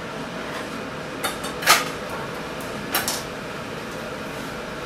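Kitchen utensils knocking: spatulas and a wooden cutting board handled at the stove give three sharp clicks, the loudest a little under two seconds in, over a steady hiss.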